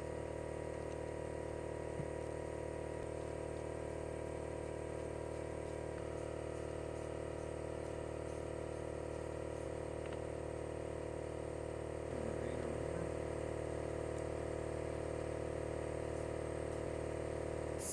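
Steady drone of a motor running in the workshop, with a few faint clicks; it grows slightly louder about two-thirds of the way through.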